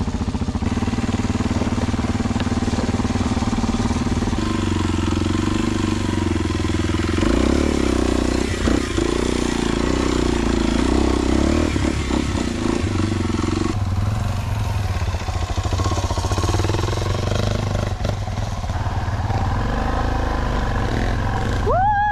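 Kawasaki KLX230SM's single-cylinder four-stroke engine, fitted with a Delta Barrel4-S silencer, running under way at low speed on a rough dirt track. Its note steps up and down a few times with throttle and gear changes. Tyre and wind noise run underneath.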